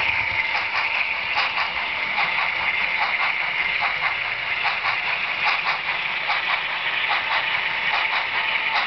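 HO-scale model train running along the track: a steady whir from the locomotive motor and rolling wheels, with clicks a few times a second as the wheels pass over the rail joints.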